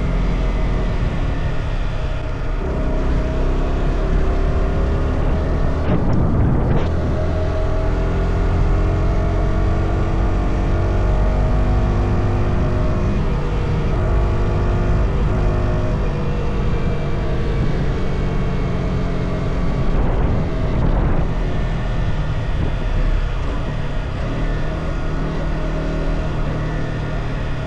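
Yamaha R125's single-cylinder four-stroke engine running under way on a stock exhaust, its pitch climbing and falling as the bike accelerates and eases off, with brief breaks about six seconds in and again around twenty seconds, over steady wind and road rumble.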